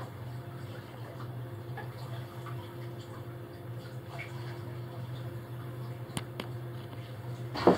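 Steady low hum with a faint steady tone above it, heard inside the cabin of a solar-powered electric boat underway, with light water sounds at the hull. Two sharp clicks come about six seconds in.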